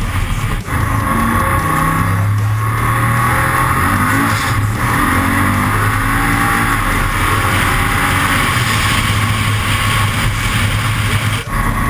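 Turbocharged 370-cubic-inch iron-block LS V8 with a GT47-80 turbo, running loud and steady on boost, with brief drops in level about half a second in and near the end.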